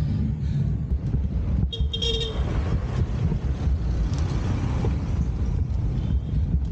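A short vehicle horn toot about two seconds in, over a steady low rumble of wind on the microphone of a bicycle climbing slowly.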